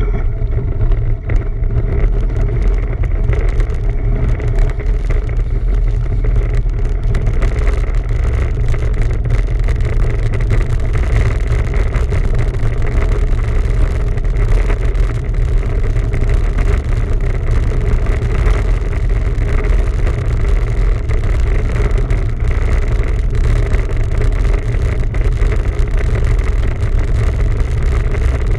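Steady low wind rumble and rolling noise on the microphone of a camera riding along on a moving bicycle.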